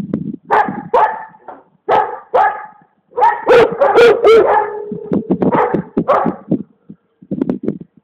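Komondor dog barking repeatedly, in short groups of loud barks with brief pauses between them.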